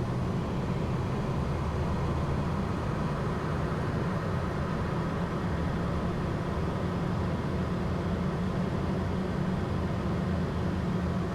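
Steady cockpit noise of a Pilatus PC-24 jet in flight: an even low hum under a rushing airflow hiss, unchanging throughout.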